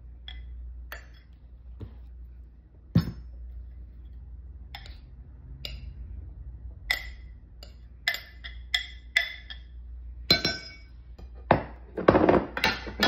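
Glass bowl and glass dish clinking and knocking against each other as shredded chicken is tipped and scraped from one into the other. The clinks are scattered, with a sharp knock about three seconds in and a quicker run of clinks and knocks near the end.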